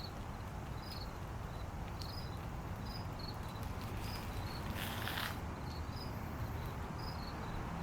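Insects chirping: short, faint, high chirps repeating roughly twice a second over a steady low rumble, with a brief hiss about five seconds in.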